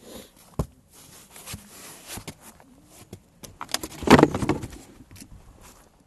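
Handling and movement noise from someone walking with a camera and flashlight: scattered clicks and rustling, with a louder rustling noise lasting about half a second around four seconds in.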